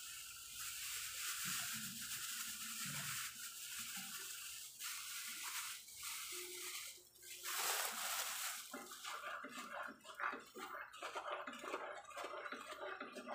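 Sugar, melted butter and condensed milk being stirred together in a cooking pan. A steady hiss for the first several seconds, then from about nine seconds in quick, repeated scraping strokes of the spoon against the pan.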